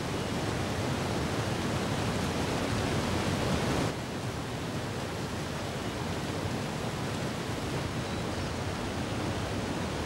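Steady rushing of a large waterfall and the churning white water below it, dropping slightly in level about four seconds in.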